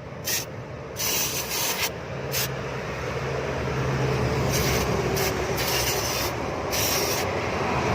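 Aerosol engine cleaner sprayed onto a dirty engine in repeated short hissing bursts, over a steady low hum.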